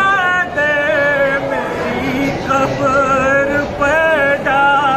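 A man chanting an Urdu noha (lament) without instruments, drawing out long wavering, ornamented notes.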